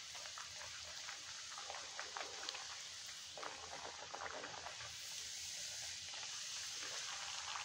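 Spinach puri deep-frying in hot mustard oil in a steel kadhai: a steady, faint sizzle with light crackles as the oil bubbles around the dough while it is pressed down with a wire skimmer.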